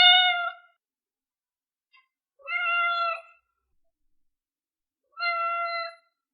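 Newborn kitten meowing three times, each call steady in pitch and just under a second long, with pauses of about a second and a half between them: the high crying a very young kitten makes when calling for help or for its mother.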